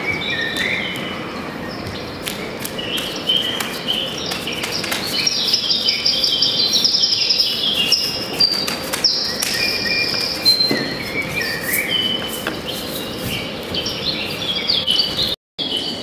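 Recorded birdsong played over a loudspeaker: many small birds chirping and twittering at once in dense, overlapping high calls. It breaks off for a moment near the end.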